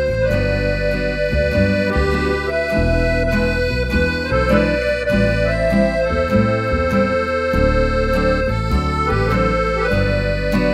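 Instrumental background music: held melody notes over bass chords that change every second or so.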